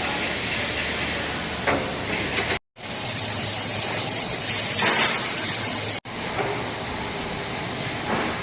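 Steady hiss and running noise of an automatic glue-spraying line for foam mattresses, with a few short knocks. The sound drops out abruptly about two and a half seconds in and cuts again about six seconds in.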